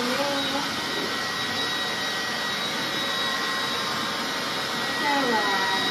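Electric leaf blower running steadily, a rush of air with a steady high motor whine, its nozzle blowing into a wet dog's thick coat to dry it.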